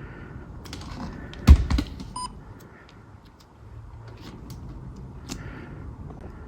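Handling noise: scattered small clicks and a loud knock about one and a half seconds in, followed shortly after by a brief electronic beep.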